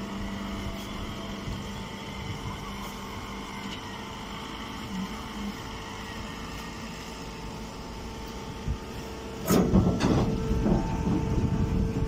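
Steady machine hum from a hydraulic straw baler at work; near the end a sudden loud burst of rustling and crackling as the compressed straw bale is pushed out into its woven bag.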